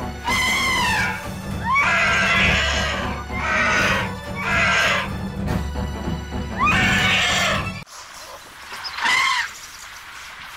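Elephant trumpeting: about six loud, high calls, each roughly a second long and rising then falling, with a steady low hum beneath that cuts off suddenly about eight seconds in.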